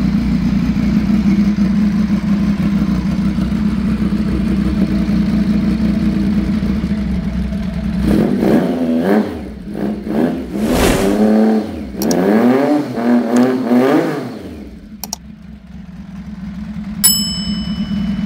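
Triumph motorcycle engine idling steadily, then revved several times in rising and falling sweeps before dropping back to idle; it is running with its fuel system sorted and new fuel lines fitted. A sharp click and a short ringing ding come near the end.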